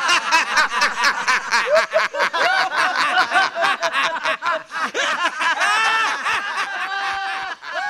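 A group of men laughing loudly together in rapid, overlapping bursts of hearty, exaggerated laughter, as in a laughter club's deliberate group laughing.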